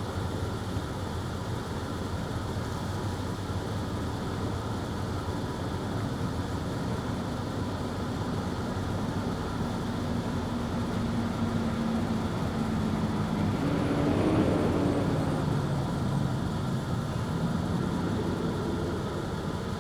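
Water being pumped through a hose into a 225-gallon tank in a pickup's bed at a filling station, a steady rush. A low tone rises and the rush swells briefly about two thirds of the way through.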